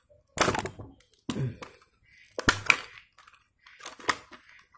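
Stiff plastic blister packaging crackling as the pack is pulled open by hand, in four short bursts about a second apart, the loudest about halfway through.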